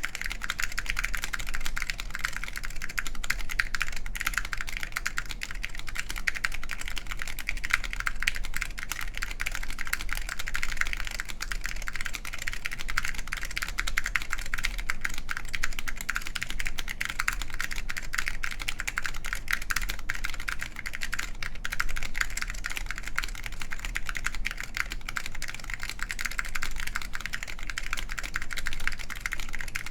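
Continuous typing on an ai03 Lunar II mechanical keyboard with wax-boiled SKCL Green Alps linear switches in an aluminium plate, under Apple Extended Keyboard II keycaps: a steady, dense stream of keystroke clacks.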